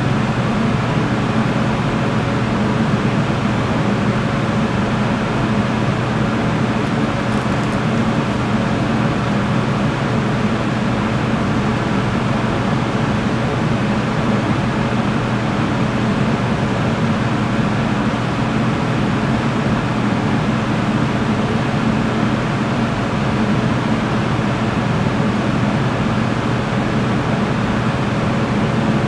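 Steady machine drone: a low hum with a constant rushing, fan-like noise, unchanging and with no distinct handling sounds.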